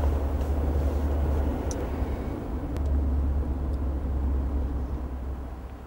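Low, steady rumble of a car's engine and road noise heard from inside the cabin while driving, swelling about three seconds in and fading near the end.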